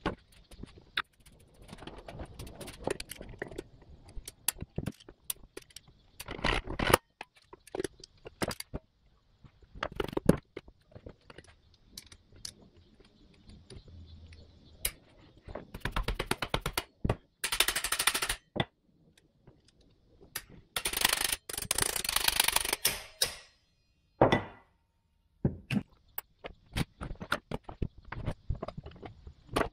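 Hand tools working on the metal case of a 1960s Craftsman riding-mower transmission: scattered metal clicks, taps and knocks, with several harsher scraping stretches of a second or two as the fasteners come out and the case halves are worked apart.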